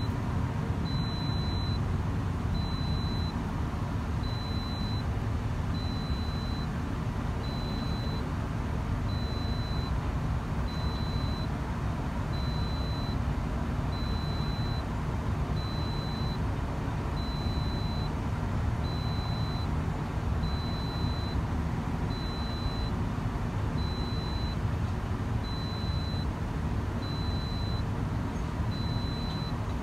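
Diesel engine of a compact excavator running under load as it digs, a steady low rumble. A high beep repeats about every second and a half.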